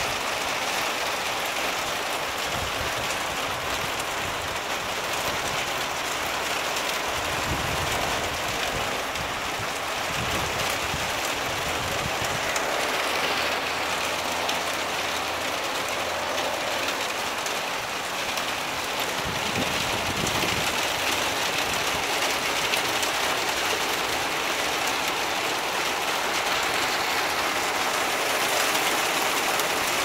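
Steady rain, an even hiss of drops falling on leaves and ground, with water streaming off a roof edge. A faint low rumble comes and goes a few times underneath.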